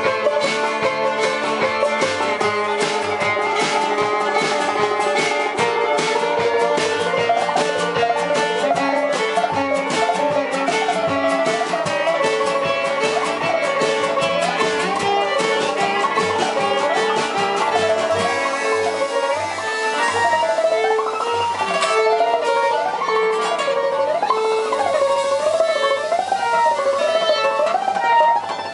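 Acoustic string band playing: violin, upright bass and guitar over a quick, steady strummed rhythm. In the second half a melody with swooping slides comes to the front.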